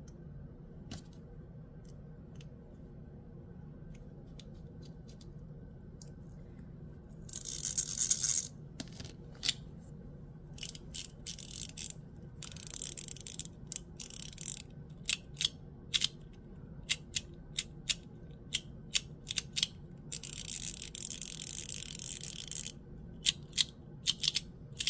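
Aluminum Gao Studio Magnetic Master 2.0 magnetic fidget toy being worked in the hand: many sharp metallic clicks as its magnetic parts snap into place, with three stretches of rasping, rattling noise as parts slide against each other.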